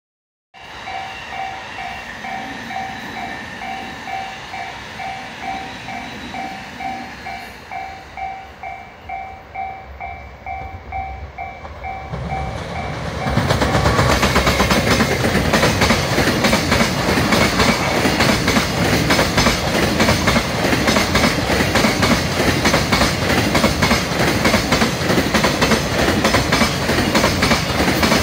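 Level-crossing warning bell ringing about twice a second. About 13 seconds in, a freight train hauled by an EF210 electric locomotive arrives and passes, its wheels clattering loudly over the rail joints and drowning out the bell.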